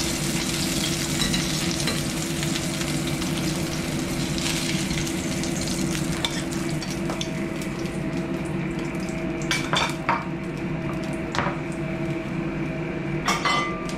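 Hot oil sizzling in a stainless steel frying pan as fried tofu pieces are lifted out with a slotted metal spatula, over a steady low hum. The sizzle dies down after about six seconds, and a few sharp clinks of utensils and dishes come near the end.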